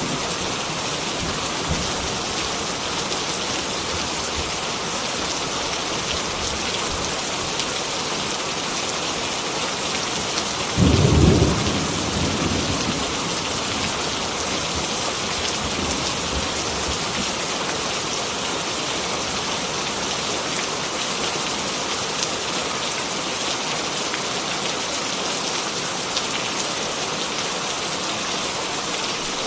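Heavy rain falling steadily, with one short, loud rumble of thunder about eleven seconds in that fades over a couple of seconds.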